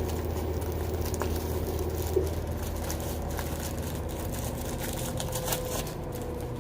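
Small clicks and rustling of carburettor parts and their packaging being handled, over a steady low background hum.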